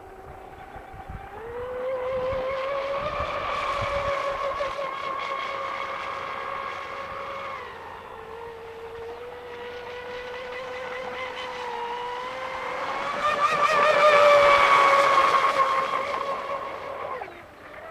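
High-pitched whine of an RC catamaran speedboat's Feigao 540 XL brushless motor, run on a 6-cell LiPo, driving the boat at speed across the water. The pitch jumps up about a second in, eases a little near the middle, then climbs to its loudest as the boat passes close. It cuts off suddenly near the end.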